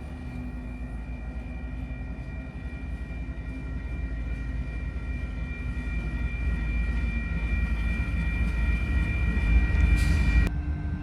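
Train approaching and growing steadily louder, its low rumble topped by several steady high-pitched tones. A brief hiss comes at about ten seconds, and the high tones cut off suddenly just after.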